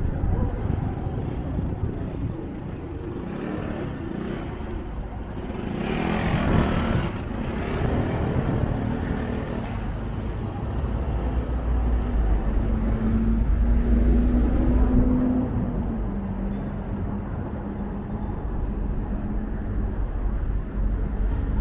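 City street traffic: vehicle engines running and passing under a constant deep rumble. About six seconds in, a louder noisy swell passes. Around the middle, a steady engine hum climbs slightly in pitch and then drops back.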